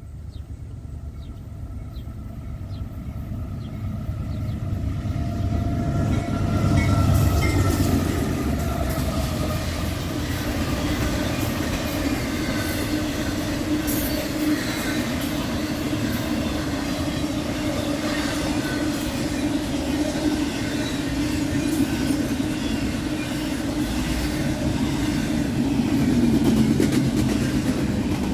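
Westbound intermodal freight train coming in. It grows louder over the first six seconds or so, then its cars roll past in a steady rumble with a low hum and faint clicking from the wheels on the rail joints.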